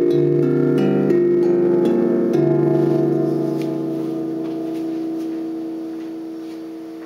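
Aurora nine-tone steel tank drum in a D–F–G–B♭–C pentatonic tuning, struck with mallets: about seven notes over the first two and a half seconds with the deep D root sounding beneath, then the notes left to ring and slowly fade.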